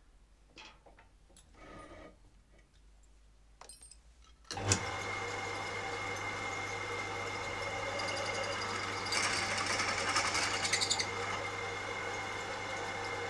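Pillar drill (drill press) switched on about four and a half seconds in, its motor then running steadily with a low hum and a steady whine. A few faint clicks come before it starts, and a rougher, grittier sound joins for about two seconds past the middle.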